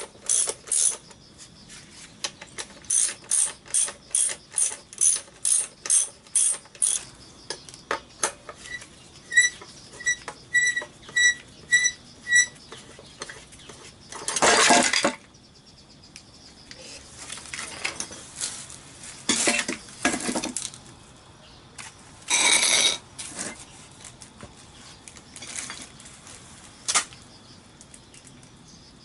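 Socket ratchet wrench clicking in quick runs, about three clicks a second, as bolts on a scooter engine's drive case are worked loose, with higher, ringing clicks midway. Later come a few louder rasping scrapes, each about a second long.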